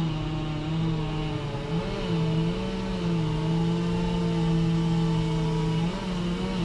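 An engine running hard at steady high revs, its pitch jumping up briefly about two seconds in and again near the end before settling back.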